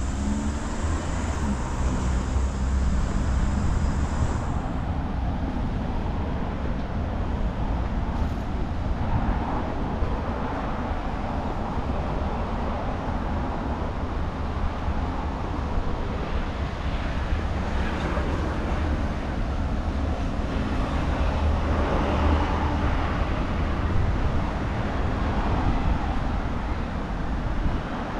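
Steady outdoor road traffic noise with a strong low rumble. A faint high-pitched whine stops about four seconds in.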